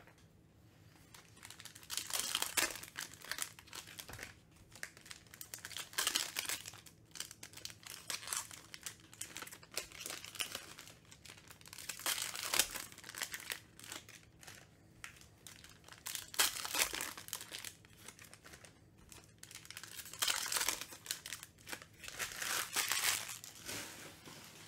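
Foil trading-card pack wrappers crinkling and tearing as packs are ripped open, in about five bursts a few seconds apart.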